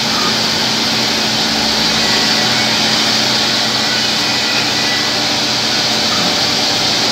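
CNC multi-head mortising machine running, its spindles cutting mortises in curved wooden chair parts: a loud, steady mechanical noise with a low hum underneath.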